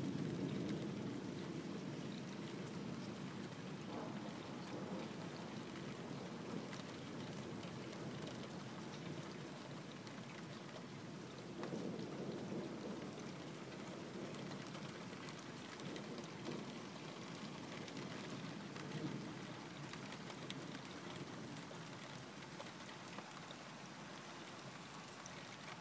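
Steady rain falling with a low rumble of distant thunder, loudest at the start and slowly dying away, swelling briefly a couple of times.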